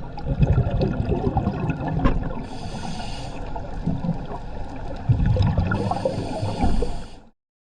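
Scuba diver breathing through a regulator underwater: two hissing inhalations through the demand valve, with low gurgling rumbles of exhaled bubbles in between. The sound cuts off suddenly near the end.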